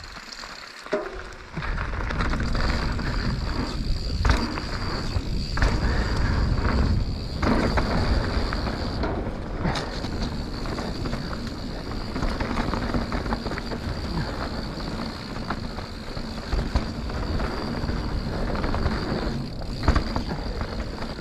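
Mountain bike riding down a trail, heard from a camera on the bike or rider: wind buffeting the microphone and the bike rattling and knocking over rough ground. It gets louder about two seconds in as the bike picks up speed.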